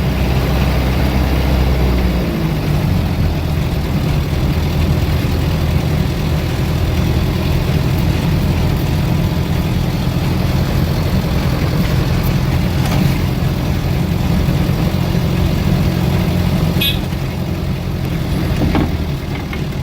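Engine and road noise from a vehicle on the move, heard from inside the cab: a steady low engine note that shifts about two seconds in, then runs on evenly.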